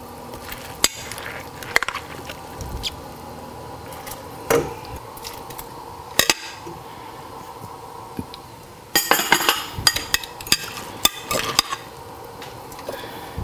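A spoon clinking and scraping against a glass bowl and a stainless steel pot as pickled mustard greens are tipped into simmering soup. Scattered single clinks early on give way to a busy run of clinks about nine seconds in.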